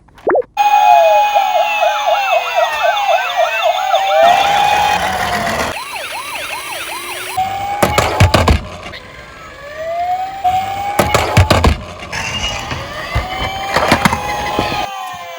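Police car sirens sounding, several overlapping: a fast yelp in the first few seconds, then slower rising and falling wails. A few sharp knocks cut through in the second half.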